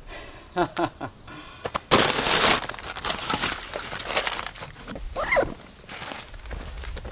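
Cloth bag and backpack being handled, with a loud burst of rustling and crinkling about two seconds in and scattered softer rustles and clicks. A few short pitched squeaks sound around it.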